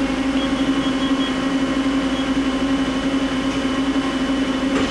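Mori Seiki SL-403CMC CNC turning center running under power: a steady mechanical hum with a constant mid-pitched tone, even and unchanging.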